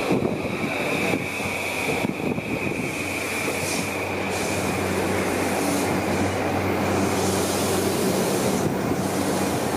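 Electric train running by at the platform, its wheels and running gear rumbling steadily. A high, steady wheel squeal fades out about four seconds in, and a low steady hum comes in behind the rumble.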